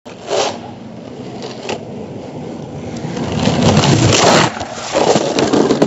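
Skateboard wheels rolling over rough concrete paving, a steady rumbling scrape that gets louder about three seconds in, with a couple of knocks early on as the wheels cross joints.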